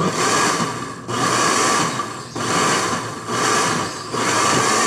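Electric countertop blender churning thick cassava cake batter with jackfruit flavouring, pulsed on and off about once a second, five bursts in all, the motor dropping back briefly between them.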